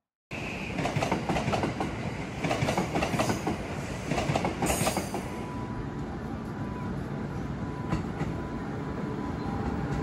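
Train running on the rails: the wheels clatter over rail joints in a rhythmic clickety-clack, and a faint steady tone joins about halfway through.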